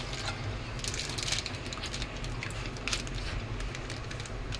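Milk pouring from a plastic pouch into an aluminium pot, with short crinkles of the pouch as it is squeezed. A steady low hum runs underneath.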